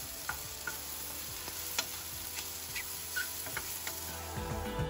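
Sliced mushrooms sizzling in a frying pan, with a wooden spatula clicking and scraping against the pan as they are stirred. The sizzle is a steady hiss, broken by a scattering of short clicks.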